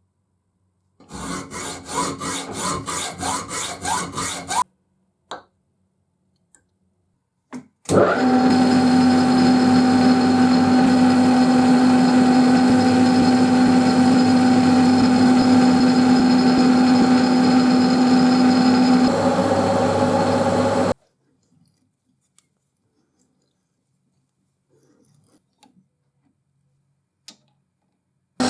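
A hand tool worked in rhythmic strokes, about three or four a second, for a few seconds. Then an electric power tool runs steadily with a constant hum for about thirteen seconds and stops abruptly, followed by a few light taps.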